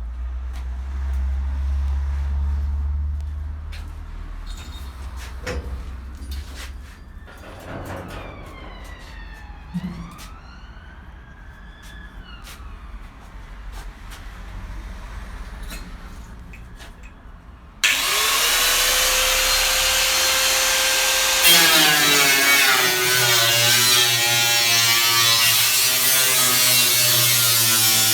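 Some low rumble and scattered clicks and knocks, then about eighteen seconds in a power cutting tool starts abruptly and runs loudly. Its whine shifts in pitch a few seconds later as it cuts into the steel of a classic Mini's front wing.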